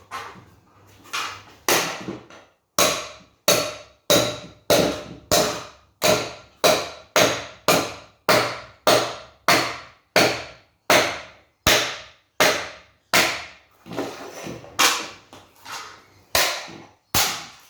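Repeated hammer blows on a ceiling fan's metal motor housing, denting it, about one and a half strikes a second, each with a short metallic ring. The first few blows are lighter; from about three seconds in they come hard and evenly.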